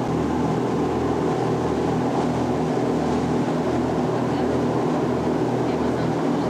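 Motorboat engine running steadily under way, an even drone with no change in pitch.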